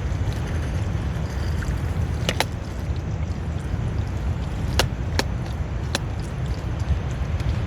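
Wind buffeting the tent and microphone: a steady low rumble, with a few sharp ticks about two, five and six seconds in.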